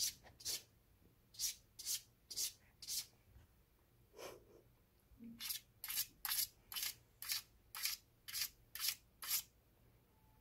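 Persian chinchilla cat crunching dry food, sharp crisp chews about two a second. There is a pause of about two seconds in the middle, then a steady run of about ten crunches that stops shortly before the end.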